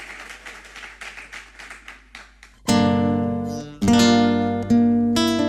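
Scattered applause dying away, then a nylon-string classical guitar begins a song about two and a half seconds in with a loud strummed chord, followed by three more strummed chords.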